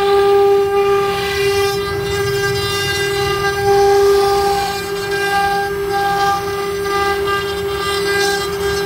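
CNC router spindle running at a steady high-pitched whine while its bit carves a floral pattern into a wooden panel, with a rough cutting rasp that swells and eases as the bit moves through the wood.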